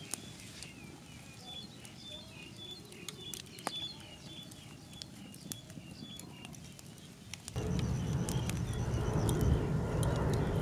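Small birds chirping over and over in quick short calls, with a few sharp clicks and snaps. About seven and a half seconds in, a louder, steady low rushing noise starts abruptly and covers the birds.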